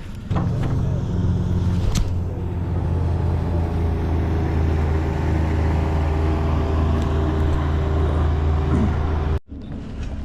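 Outboard boat motor running steadily at a constant speed, cutting off abruptly near the end.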